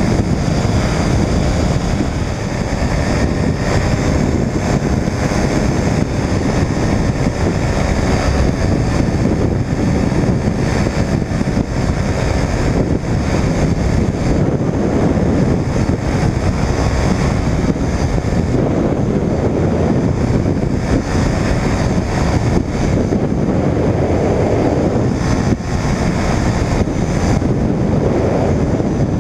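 Engine of an Air Création Pixel weight-shift microlight trike running steadily in cruise, driving its rear pusher propeller, under heavy wind rush on the microphone.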